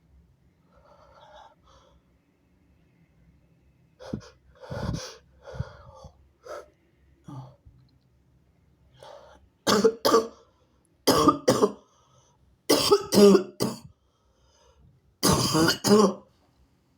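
A sick person coughing harshly. Several quieter coughs and throat-clearing sounds come about four seconds in, then four loud coughing fits in the second half, each of two or three coughs.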